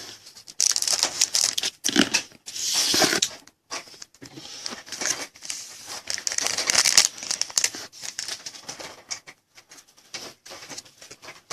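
Trading-card pack wrapper torn open and crinkled, with irregular tearing and rustling noises that come and go.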